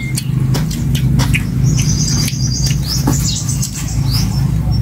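Close-up chewing and lip-smacking of people eating, with clicks of chopsticks against styrofoam food boxes. High bird chirps come in about two seconds in, over a steady low hum.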